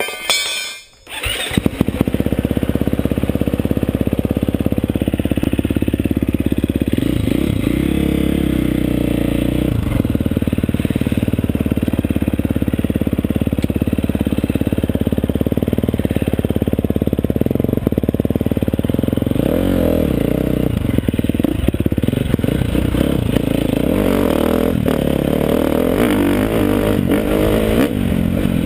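KTM 350 SX-F's single-cylinder four-stroke engine starting up at the outset, then running as the bike is ridden, revs rising and falling through gear changes; it is a new engine being broken in.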